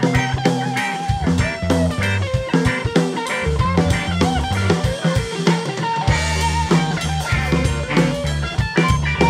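Rock band playing live: electric guitars with a sustained, bending lead line over a steady drum kit beat. The cymbals get louder about six seconds in.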